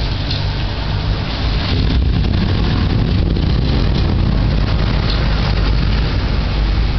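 Long rolling rumble of thunder over steady rain during an electrical storm, swelling slightly about a second in and holding.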